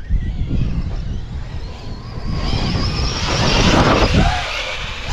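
Arrma Outcast 4S RC monster truck's brushless electric motor and drivetrain whining under throttle, the whine rising and falling in pitch from about halfway through, over rumble and wind on the microphone.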